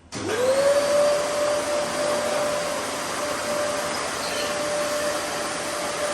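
A high-speed electric motor switched on, spinning up within half a second to a steady whine over a loud rush of air.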